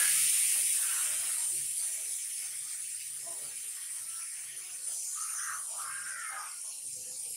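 A loud, steady, high-pitched hiss that starts and stops abruptly and fades slightly over its length.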